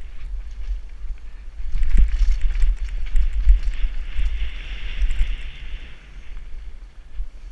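Downhill mountain bike descending a dirt forest trail, heard from a helmet-mounted camera. Wind buffets the microphone, the tyres rush over the dirt, and the bike rattles and knocks over bumps, loudest about two seconds in. The rushing hiss gets louder from about four to six seconds in.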